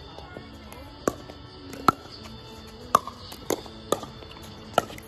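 Pickleball rally: sharp pops of paddles striking the plastic ball, about six hits in five seconds at an uneven pace of roughly one a second. Music plays underneath.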